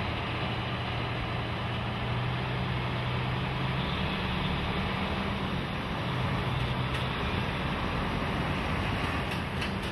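Diesel semi-truck tractor hauling a shipping container on a chassis trailer, its engine running steadily as it drives slowly past, the engine note shifting a few times.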